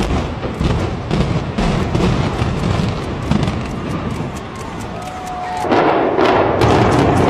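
Building implosion: the rumble of a collapsing structure, broken by scattered sharp cracks. A short steady tone follows about five seconds in, then near the end a rapid series of sharp cracks from explosive demolition charges firing in sequence.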